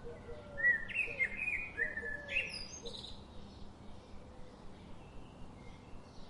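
Forest birdsong: a songbird sings a quick phrase of chirps and short whistles from about half a second to three seconds in, over fainter calls from other birds.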